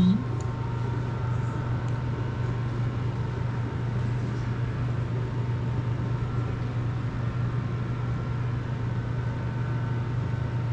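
Steady low hum with faint steady whistling tones above it and a soft hiss: constant room background noise, unchanging throughout.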